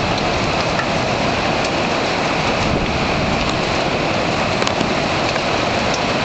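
Severe thunderstorm: strong wind and heavy rain making a steady, loud rush, with a few scattered small ticks of drops or hailstones striking.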